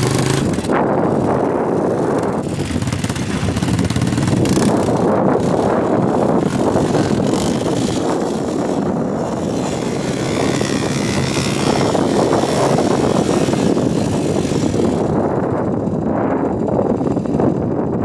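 ATV engine running steadily, a loud, continuous mechanical drone mixed with rushing noise.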